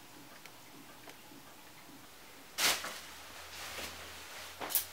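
A wooden cabinet being opened and rummaged through: a sudden clatter about halfway in that fades away, and a second shorter one near the end, over a quiet room.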